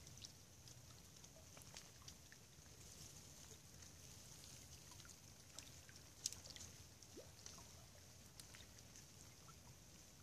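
Near silence: faint riverside ambience of a steady soft hiss and low rumble, with scattered small ticks and one sharper tick about six seconds in.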